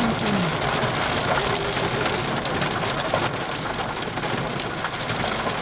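Heavy rain pelting a car's windshield and roof, heard from inside the cabin: a dense, steady patter of drops.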